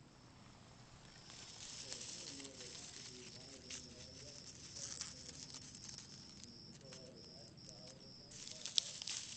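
An insect singing a steady high trill that breaks into short, evenly spaced pulses, over the rustle of leaves and stems being handled. The rustling grows louder near the end, with one sharp crackle.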